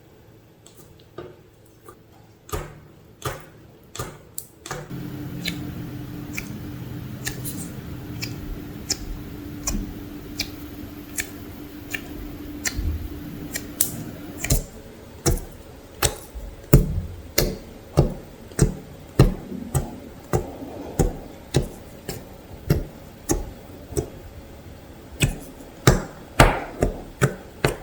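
Slime being squeezed and poked by hand, making a series of sharp clicks and pops. They are sparse at first and come steadily, roughly twice a second, in the second half.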